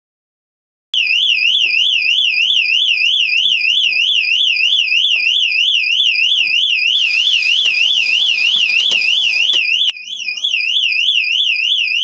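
Electronic alarm siren warbling rapidly up and down, about three or four cycles a second. It starts abruptly about a second in, drops out briefly near the ten-second mark, then resumes. Faint clicks and knocks sit underneath.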